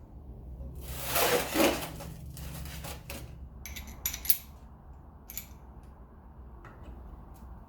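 Metal parts and tools being handled on a workbench: a loud rushing scrape about a second in, then several sharp metallic clinks with a bright ring, over a steady low hum.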